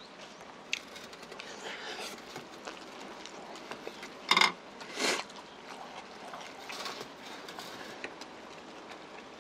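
A person eating close to a clip-on microphone: chewing and small wet mouth and utensil clicks. Two louder short sounds come about four and five seconds in.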